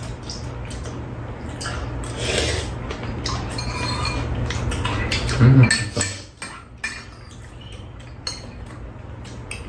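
Metal spoons and chopsticks clinking and scraping against bowls and a frying pan during a meal, in many short clicks over a low steady hum. There is one brief louder low sound about five and a half seconds in.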